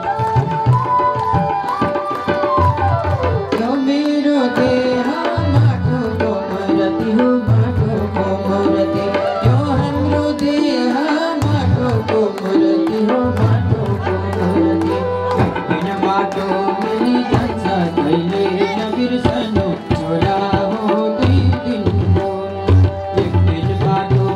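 Devotional bhajan music: tabla drumming under a gliding melody line and a harmonium, with a congregation clapping along in time.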